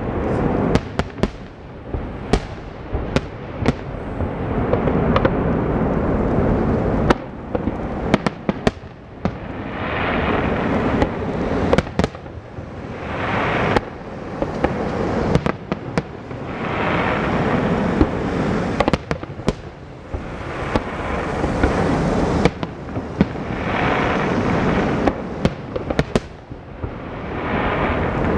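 Fireworks display: aerial shells bursting in quick succession, sharp reports over a dense rolling wash of noise that swells and fades in waves every few seconds.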